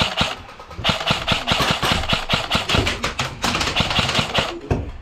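Airsoft gunfire: a rapid, irregular string of sharp snapping shots, several a second, from about a second in until near the end.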